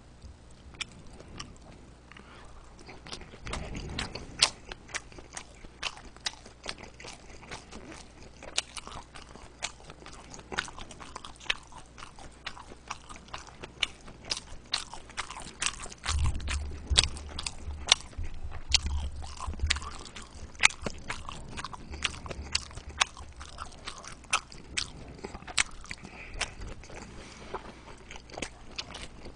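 Close-miked chewing of large hand-made dumplings (mandu): many short, wet mouth clicks and smacks in an irregular run.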